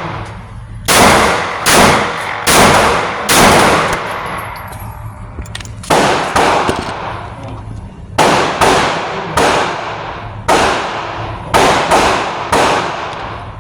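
Glock 43X 9mm pistol firing about fourteen shots in quick strings of two to four, each shot sharp and followed by a ringing echo.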